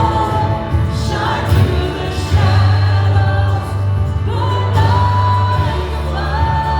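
Congregational worship song with a band: sung voices holding long notes over a steady bass.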